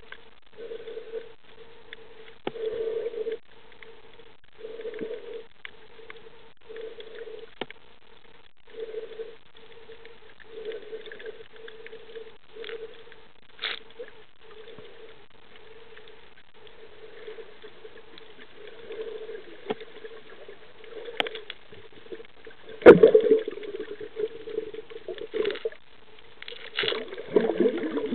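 Underwater sound picked up by a camera in a waterproof housing while snorkeling over a reef. A muffled hum swells about every two seconds, with scattered sharp clicks throughout and a louder thump near the end.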